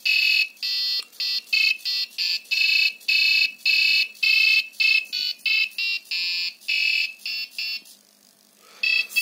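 Arduino-driven piezo buzzer playing a Christmas tune as a string of short, thin electronic beeps, one note after another at changing pitches. The tune breaks off for about a second near the end, then starts again.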